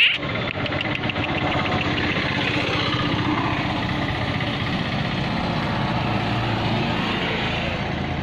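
A small motor vehicle engine idling steadily.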